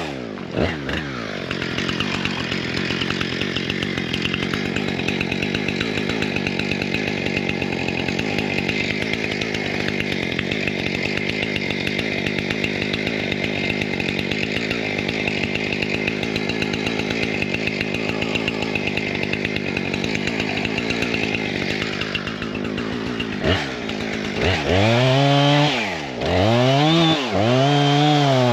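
Two-stroke chainsaw running at a steady speed for about twenty seconds, then revved up and down several times near the end, its pitch rising and falling with each rev.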